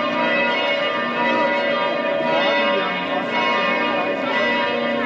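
Two bells of St. Stephen's Cathedral (Stephansdom) ringing together, their many overlapping tones blending into a steady, continuous peal.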